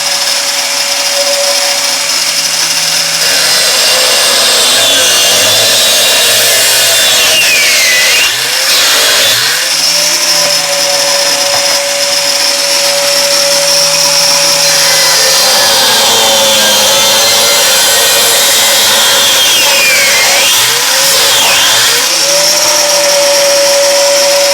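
Angle grinder running at full speed with a steady high whine; twice its speed drops and climbs back, the way a grinder bogs down when it is pushed into a cut.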